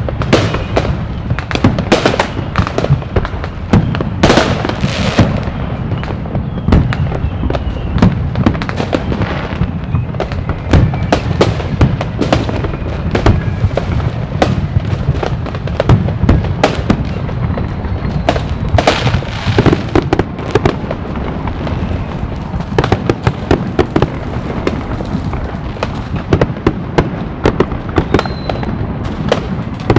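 Fireworks going off continuously: a dense barrage of overlapping sharp bangs and crackles over a steady low rumble, with no pause.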